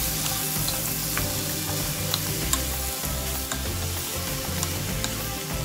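Clam meat, ginger and bell pepper sizzling in a nonstick pan as they are stir-fried, with scattered clicks and scrapes from a wooden spatula turning them.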